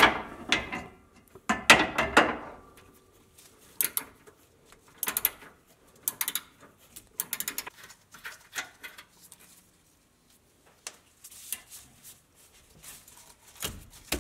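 Metal tools clanking on a Jeep's track bar ball-stud nut as it is worked loose with a ratchet wrench: a sharp ringing clank at the start and another about two seconds in, then scattered lighter clicks and knocks.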